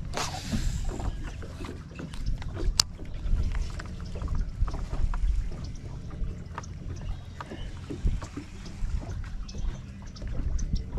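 Wind on the microphone and water lapping against the hull of a fishing boat, with scattered light clicks and knocks. One sharp click about three seconds in.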